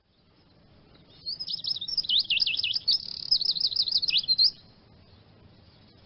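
Eurasian siskin singing: one burst of fast, high twittering, about three seconds long, made of quick up-and-down warbled notes, starting about a second in.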